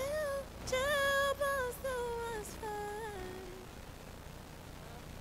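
A solo voice singing a wordless melody of several held notes joined by quick slides, stopping about three and a half seconds in.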